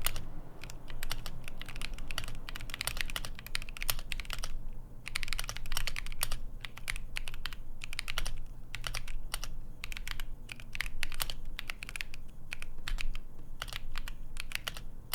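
Steady typing on a Keychron Q2 Pro mechanical keyboard, stock with no mods, fitted with prelubricated Keychron K Pro Banana switches and Keychron Carbon keycaps. The keys make a creamy clacking in quick runs with short pauses.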